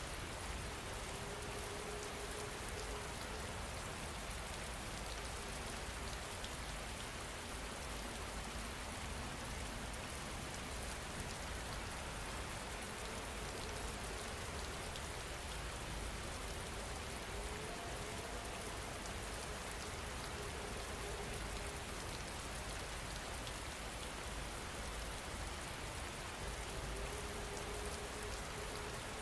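Steady rain falling in an even, unbroken patter, with a faint wavering hum coming and going a few times underneath.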